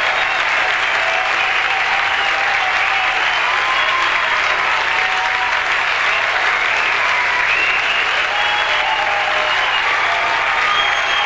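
Audience applauding steadily, with scattered cheers and whistles over the clapping.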